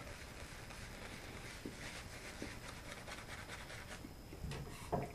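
Badger-hair shaving brush swirling lather over the face, a faint continuous bristly rubbing. A couple of louder knocks come near the end.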